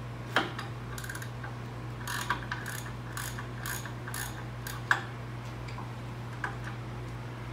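Hand ratchet clicking in short runs as it turns out the 18mm bolts of a rear brake caliper mounting bracket, with a few sharp metal clinks, the loudest about five seconds in.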